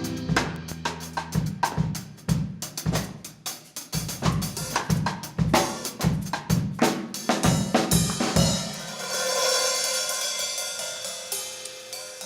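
Drum kit played live in a run of quick strikes on the drums and cymbals. After about eight seconds the strikes stop and a cymbal is left ringing out.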